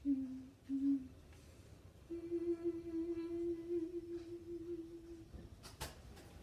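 A woman humming without words: two short notes, then one long held note lasting about three seconds. A single sharp click comes near the end.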